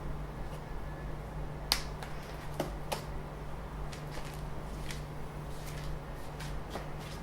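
A few sharp clicks and snaps from printer parts and packaging being handled during unboxing, the loudest about a second and a half in, over a steady low hum.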